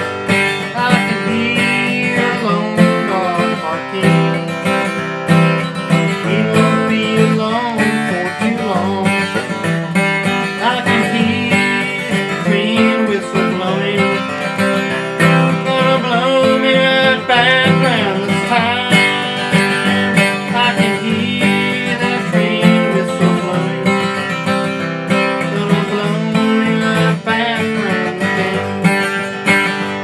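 Martin dreadnought acoustic guitar playing a bluegrass instrumental break, strummed and picked at a steady pace.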